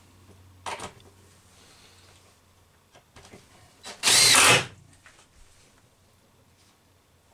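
Cordless drill driving a screw in one short burst of a bit over half a second, about four seconds in. A sharp click comes a little under a second in.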